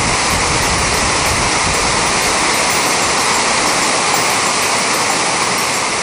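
Waterfall with three falls pouring over rock ledges: a steady, loud rush of falling water.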